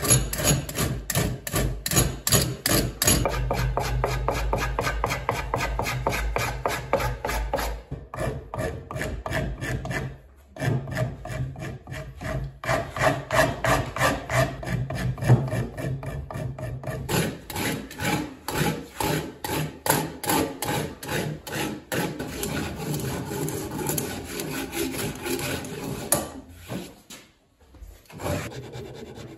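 Hand rasp and file cutting into a wooden axe handle of ash and walnut in quick, repeated strokes, with short breaks about eight and ten seconds in.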